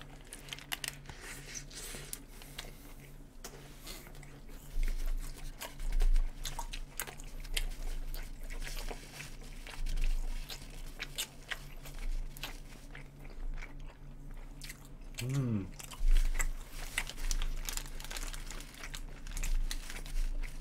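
Two people biting into and chewing hamburgers close to the microphone, a steady run of small clicky mouth sounds with occasional low thuds. About fifteen seconds in there is a brief hummed voice sound.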